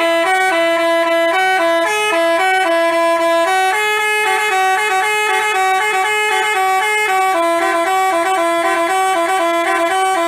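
Basuri telolet bus horn playing a melody: a loud, quick run of short stepped notes, two tones sounding together.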